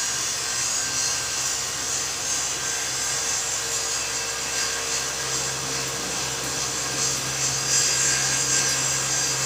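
Cotton candy machine running steadily, its spinner head motor whirring while it spins out sugar floss.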